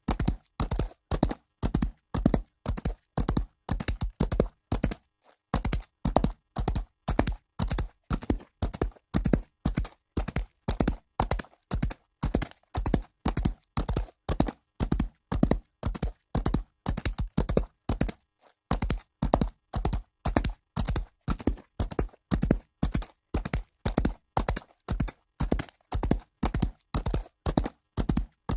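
Horse hooves galloping on dirt: rapid, steady hoofbeats in an even rhythm, broken by two brief pauses.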